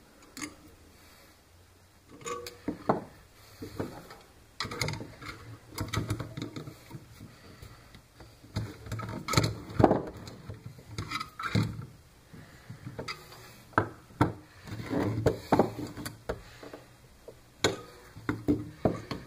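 Irregular knocks, clicks and clatter of small parts and hand tools being handled on a wooden workbench, coming in bunches with short pauses between.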